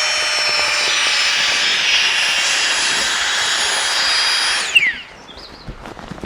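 A small electric fan motor runs with a steady high whine and rushing air, then is switched off nearly five seconds in, its pitch falling quickly as it winds down. A few light knocks and rustles follow.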